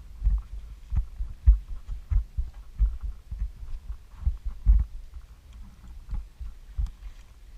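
Dull, irregular low thumps about every half second to second, with light rustles and clicks between them: footsteps and gear jolting a body-worn camera while walking.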